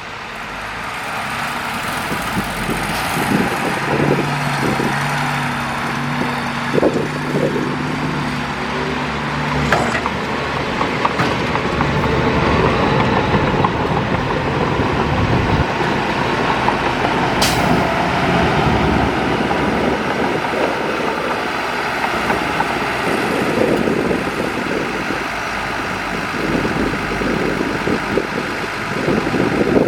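Diesel engines of heavy earthmoving machinery (a bulldozer and a dump truck) running under load, a dense, steady rumble. A steady low tone sounds for several seconds in the first third, and there is one sharp click a little past the middle.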